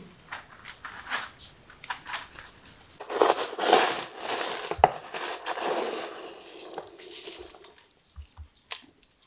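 A kitten scratching in cat litter in a plastic litter tray, a few short gritty crunches. About three seconds in it gives way abruptly to louder, continuous rustling and scuffing as a kitten moves close to the microphone, fading out near the end.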